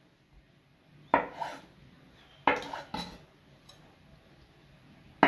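Kitchen knife clinking against a plate while hard-boiled egg is cut into chunks: a few sharp clinks, two close pairs and then a single one near the end.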